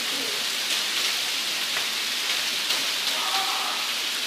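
Heavy rain pouring down onto a paved courtyard, a steady even hiss, with faint voices calling now and then.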